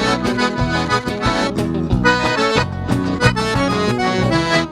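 Live gaúcho-style band music: an accordion plays the lead melody over the band's backing, with regular drum beats.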